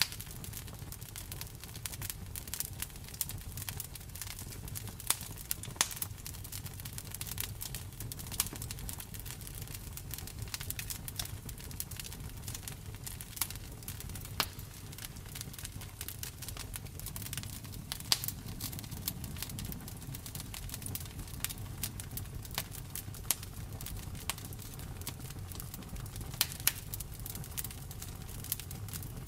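Campfire crackling: a dense scatter of small sharp pops and snaps, a few much louder than the rest, over a low steady rumble of the flames.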